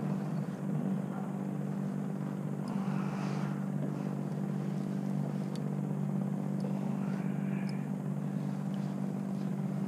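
A steady low engine-like drone, with two brief higher sounds over it, the second rising in pitch.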